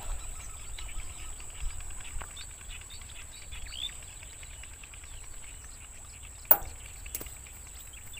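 Open-air field ambience with small birds chirping and a low rumble of wind on the microphone. A sharp click, the loudest sound here, comes about six and a half seconds in, with a fainter click soon after.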